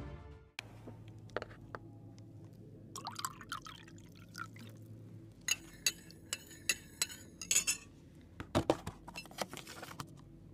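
Tea poured from a metal teapot into a small glass cup, the stream splashing and trickling with sharp little clinks and ticks against the glass.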